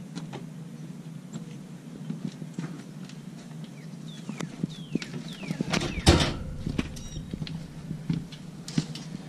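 Scattered small clicks and knocks of parts and tools being handled during an oil-filter change, with a louder clatter about six seconds in. Short, high falling chirps sound now and then in the background.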